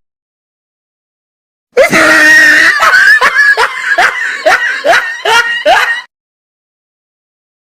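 Scream sound effect: one held, high scream followed by a run of short yelping cries, about two a second, cutting off suddenly.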